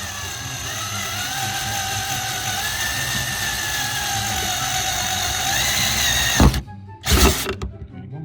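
Power drill running while drilling a hole in the car body for the spoiler mounts, its whine rising and falling a little with trigger and load. It stops about six and a half seconds in, followed by two loud knocks.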